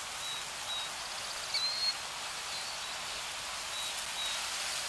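Outdoor nature ambience: a steady, airy hiss with short, thin, high bird chirps now and then.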